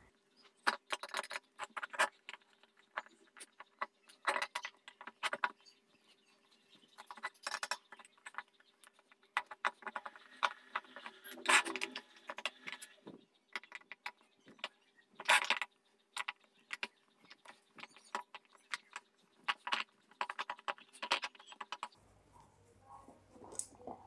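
A screwdriver working screws out of the back of an LED ceiling panel: irregular small metallic clicks, clinks and scrapes, in short clusters with pauses between them.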